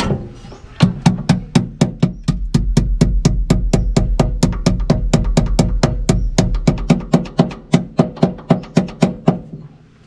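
Channel-lock pliers tapping on a battery terminal clamp to seat it on the post: a quick, even series of sharp metal taps, about four or five a second.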